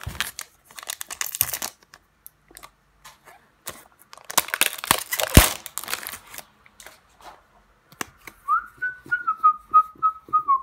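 A foil trading-card booster pack torn open and its wrapper crinkled, in two bursts, the second the loudest. From about eight and a half seconds a person whistles a tune of short notes, stepping gently down in pitch.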